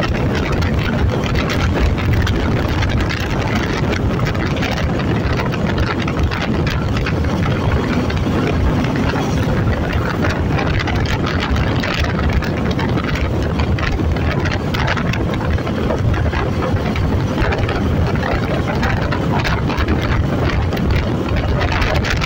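Wind rushing over the microphone together with the Suzuki V-Strom SX 250's single-cylinder engine pulling steadily at highway cruising speed.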